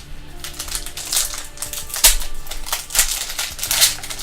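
Stiff trading cards flipped and slid against one another in the hand: a run of quick papery clicks and swishes, the loudest about two seconds in.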